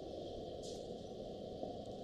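Steady room tone and recording hiss, with a faint brief rustle about two thirds of a second in.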